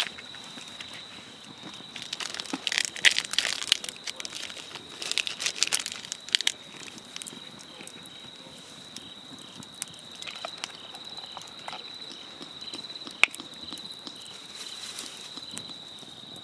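Wood campfire crackling and popping: clusters of crackles in the first six seconds or so, then scattered single pops, one sharp near the end. A steady high-pitched whine runs underneath.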